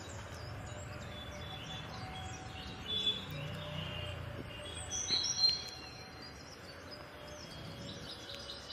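Birds chirping and calling repeatedly, with the busiest calls in the middle, over a low steady background hum.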